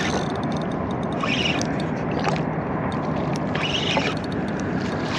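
Spinning fishing reel being cranked as a hooked sheepshead is reeled in, with short bursts of reel noise over a steady rush of background noise.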